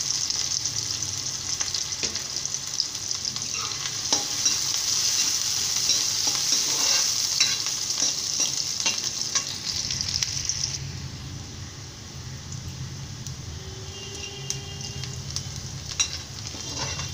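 Chopped onions sizzling in hot oil in a metal kadhai, being fried toward brown, while a metal ladle stirs them and scrapes and taps against the pan. The sizzle grows quieter about two-thirds of the way through.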